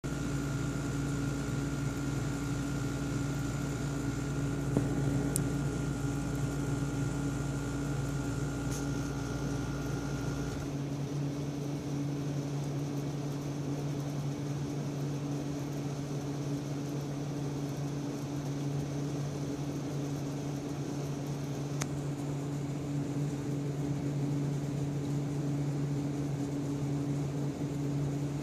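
A steady machine hum with a low, even drone. About ten seconds in, a deeper rumble and a thin higher tone drop out, and the hum carries on.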